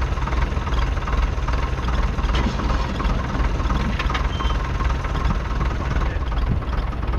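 1951 Nuffield Universal DM4 tractor's 3.4-litre four-cylinder diesel engine running steadily.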